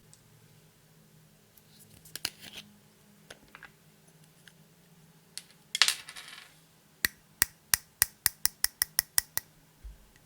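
Small hard objects clicking and scraping: a few scattered clicks, a brief loud scrape near the middle, then a quick even run of about a dozen sharp clicks, roughly five a second.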